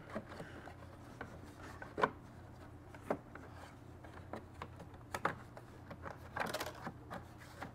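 Plastic engine housing cover of a Stihl BR800 backpack blower being worked onto the unit and pressed into place by hand: faint rubbing of plastic on plastic, with single clicks about two, three and five seconds in and a few quick ones near the end.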